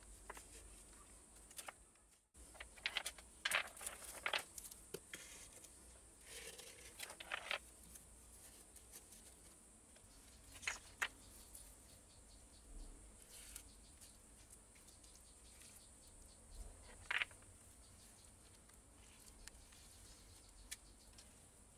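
Stones being pressed and set into wet mud mortar by hand: scattered knocks and scrapes of stone on stone, thickest a few seconds in and again twice later. A steady high insect buzz runs behind.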